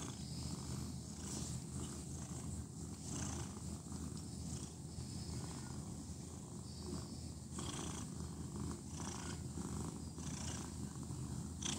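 Domestic cat purring steadily and continuously while being stroked, close to the microphone.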